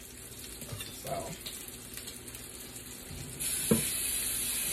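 Faint sizzling of sausage slices frying on an electric griddle. About three-quarters of the way in, a kitchen faucet is turned on and water runs steadily into the sink as a utensil is rinsed, with a short knock of the utensil against the sink just after the water starts.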